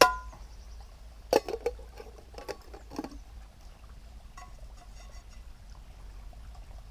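Metal camp cookware clanking: a non-stick frying pan rings as it knocks against the pot, followed by a few short knocks and scrapes as the pan is tipped and emptied into the pot, then faint taps.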